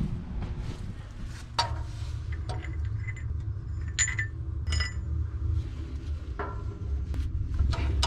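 Small metal parts of a steam traction engine's boiler fitting, a plate with a threaded stud and nut, being handled and fitted: a few sharp metallic clinks and taps, one ringing briefly about four seconds in, over a steady low rumble.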